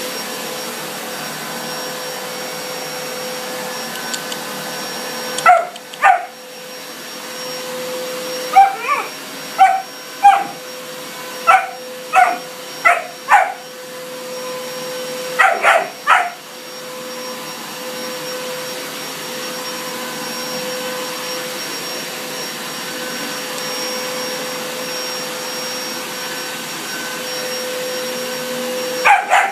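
Upright vacuum cleaner running steadily with a constant hum, while a German shepherd puppy barks at it in short, sharp bursts. There are two barks about five seconds in, a quick run of about eight barks a few seconds later, and three more soon after. A long stretch of vacuum alone follows, then another bark near the end.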